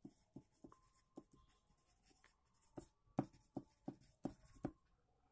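Pen writing on paper: a string of short, faint scratching strokes, a few a second, growing firmer from a little past halfway and stopping near the end.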